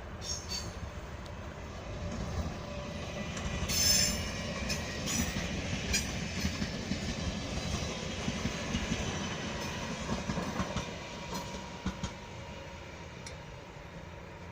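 Train moving through a station with a steady low rumble, wheels clicking over rail joints and squealing on the rails. A sharp, high screech about four seconds in is the loudest moment.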